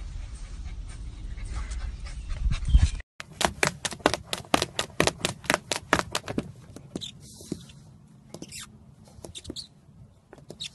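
A low rumble ending in a thump about three seconds in, as a small dog lands from a jump. Then a run of sharp clicks and taps, about four a second and thinning out, as a fluffy puppy scrabbles with its paws inside a plastic tub, with a few short high whimpers.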